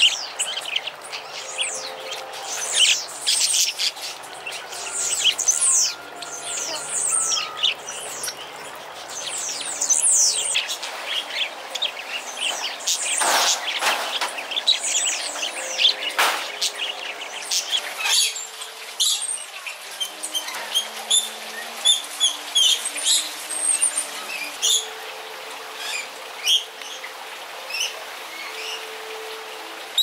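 A flock of parakeets chirping and chattering: a dense stream of quick, high, downward-sweeping chirps, with two louder harsh calls in the middle, then sparser, shorter chirps toward the end.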